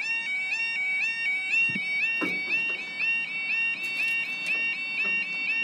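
Railway level crossing's audible warning alarm, an electronic two-tone warble repeating about four times a second. It sounds with the flashing red lights and lowered barriers, warning that the crossing is closed for an approaching train.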